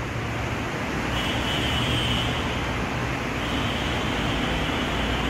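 Steady hum of city road traffic, with a faint high whine that comes and goes.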